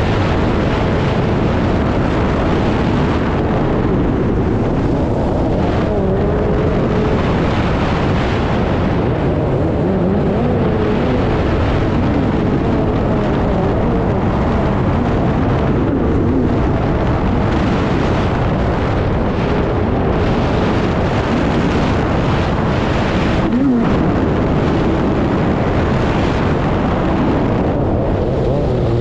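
Stand-up jet ski's two-stroke engine running hard, its pitch rising and falling with the throttle over a constant loud rushing noise.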